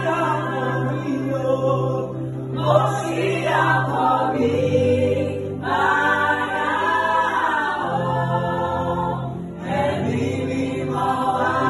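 Small choir of women's and men's voices singing a Yoruba gospel song in harmony, in phrases with short breaks between them.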